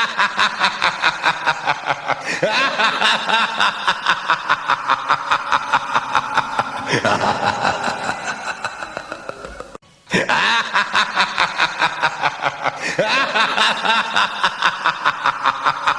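Recorded laughter ringtone: a steady run of 'ha-ha-ha' laughs, about four or five a second. It breaks off about ten seconds in and starts again as the loop repeats.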